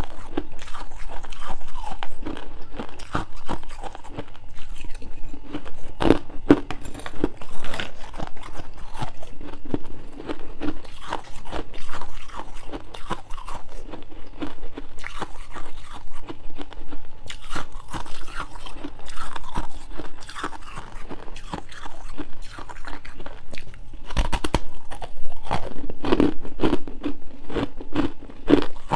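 Close-up crunching and chewing of powdery frost ice, a dense run of crackling bites with a few sharper cracks about six seconds in and again near twenty-four seconds.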